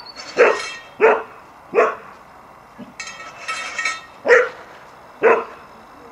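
Rough collie barking: five sharp barks, about one every 0.7 s, with a pause of about two seconds before the last two. A thinner, higher-pitched sound fills part of the pause.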